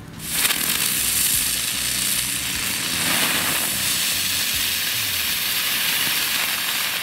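Category 1 ground firework ('Dicke Brummer') burning: a steady, loud hiss of a spark spray that starts about half a second in and dies away right at the end.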